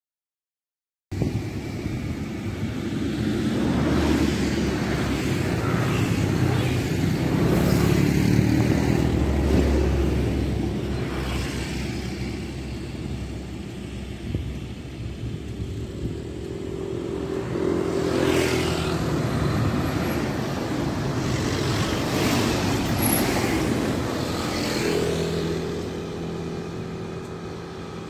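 Road traffic: motor vehicles passing on a village road, with engine and tyre noise swelling and fading as each goes by. It starts about a second in.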